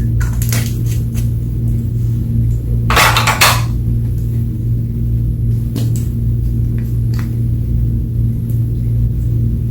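Background music with a steady low drone, over which slime is handled: a few short sticky clicks and one longer crackling squish about three seconds in.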